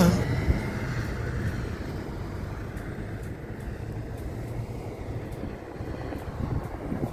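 Steady rumble of a car driving on a snowy road: engine and tyre noise with no distinct events.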